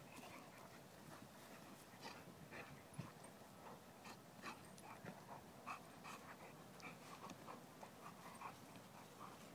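Two flat-coated retrievers play-wrestling, giving faint, short dog noises again and again as they mouth and roll on each other.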